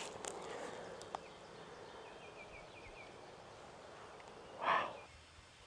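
Rustling in grass and light clicks at first, from someone moving about. Faint high bird chirps follow, then a single short, loud puff of noise a little before the end.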